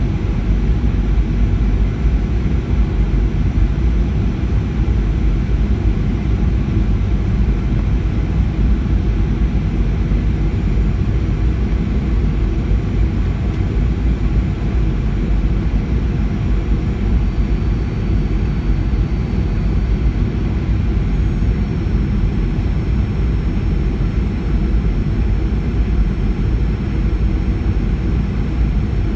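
Steady low rumble of a Boeing 737-700's CFM56-7B jet engine and rushing airflow, heard from inside the passenger cabin during the descent to land, with no sudden changes.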